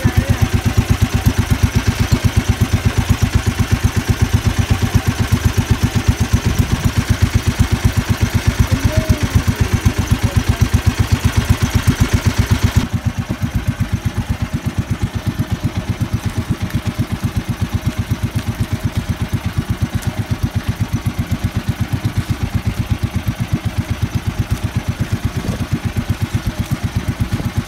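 Outrigger fishing boat's engine running steadily at trolling speed with a fast, even pulse; the sound turns duller about halfway through.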